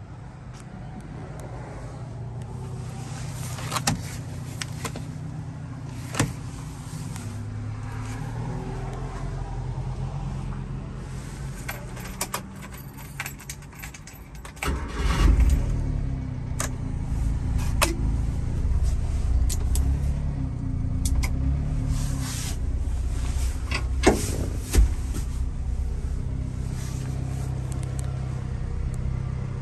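Inside the cab of a 1995 Subaru Sambar kei truck: a few sharp clicks and knocks over a low hum, then about halfway through the truck's small 660 cc four-cylinder engine starts with a sudden rise in level and runs on steadily at idle. A couple more sharp clicks come near the end.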